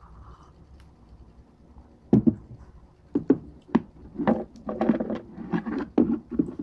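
Irregular clicks and knocks of small parts being handled and pressed into a Glock pistol frame, starting about two seconds in after a quiet stretch.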